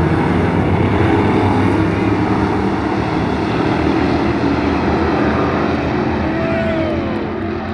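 A pack of dirt-track stock cars racing, many engines running loud together, easing off a little near the end.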